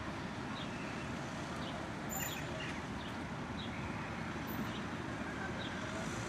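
Steady hum of distant city traffic, with short high bird chirps repeating every second or so.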